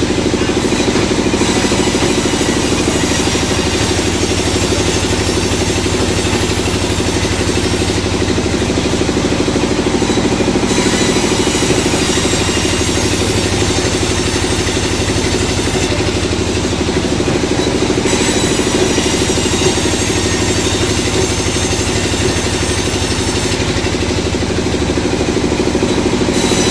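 Sawmill machinery running steadily, with a motor or engine drone. Its high hiss drops away for a couple of seconds about every eight seconds.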